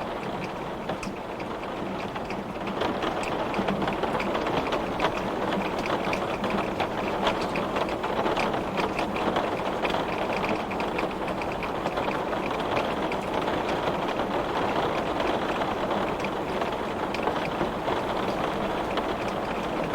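Heavy rain beating on window glass: a dense, steady hiss speckled with countless sharp drop ticks. It gets a little louder about three seconds in.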